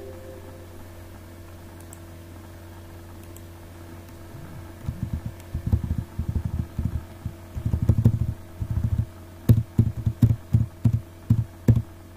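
Computer keyboard keys struck repeatedly, picked up as dull thumps over a steady low electrical hum. The first few seconds hold only the hum. The thumps start about four seconds in, first in quick clusters, then near the end as sharper single strikes about two a second.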